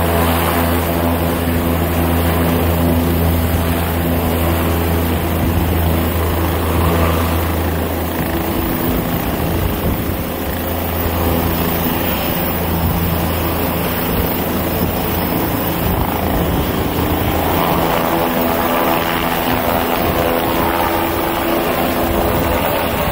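Medical helicopter running on the pad and then lifting off. Its engine and rotor make a steady, even hum at first. About eight seconds in, the sound changes to a rapid beating of the rotor blades as the aircraft rises into a hover and climbs away.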